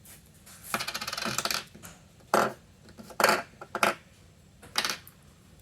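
Small metal hardware (nuts, bolts and washers) rattling and clinking as it is handled: a jingling rattle about a second in, then four separate clinks.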